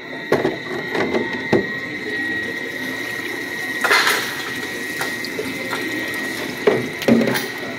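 Water running into a self-contained ice machine's sump as it fills after start-up, over a steady high-pitched whine from the machine. There are a few knocks and taps of handling, the loudest about four seconds in and near the end.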